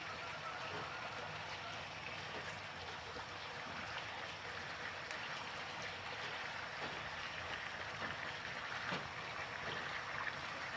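Chicken wings in a cola glaze sizzling in a nonstick frying pan, a steady hiss. A few light taps and scrapes of a spatula come through as the wings are turned.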